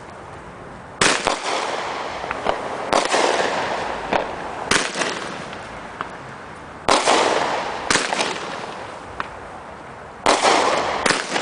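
Fireworks going off close by: six sharp bangs a second or two apart, each followed by a crackling hiss that fades.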